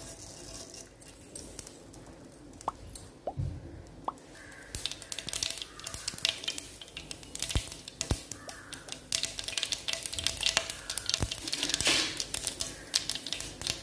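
Mustard seeds sizzling and popping in hot cooking oil in a pan. A few scattered pops at first, then a dense crackle from about four seconds in as the seeds splutter. This is the tempering stage, where the spluttering shows the oil is hot enough.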